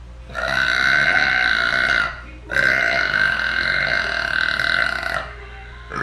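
A woman's two long voluntary burps, the first about a second and a half, the second nearly three seconds, each held at an even pitch, with a short pause between them.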